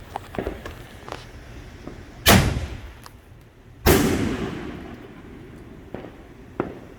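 Consumer fireworks going off: two loud bangs about a second and a half apart, the second with a long rumbling fade, among several smaller sharp pops.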